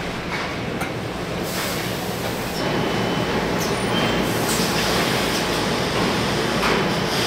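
Steady factory machinery rumble with the rattle and a few clanks of a wheeled metal rack trolley being pushed and handled; the noise gets louder about two and a half seconds in.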